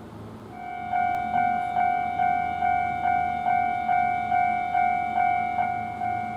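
Japanese railway level crossing warning bell starting up about half a second in and ringing its repeating 'kan-kan' strokes, a little over two a second, signalling that a train is approaching and the barriers are coming down.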